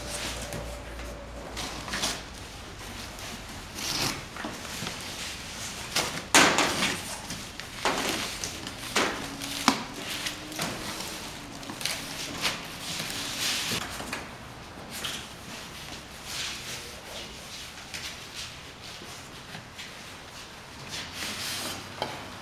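Cardboard boxes and plastic-bagged parts handled on a stainless steel table: scattered knocks and rustling, the loudest knock about six seconds in.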